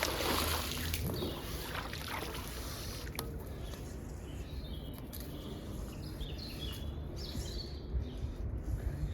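Steady outdoor background noise with a low rumble, and a few short bird chirps in the second half.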